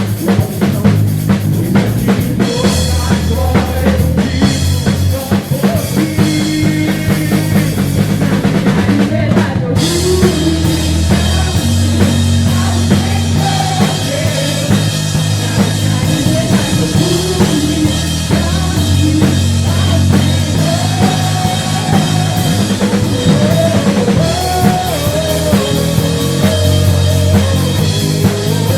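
A drum kit played with a rock band track: kick drum, snare and cymbals over bass and guitar. The cymbal wash thickens about ten seconds in.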